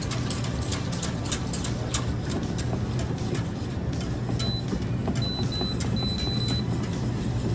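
Wire whisk clicking and scraping against the sides of a stainless steel stockpot of boiling sauce, over a steady low drone. A few short high beeps come in the middle.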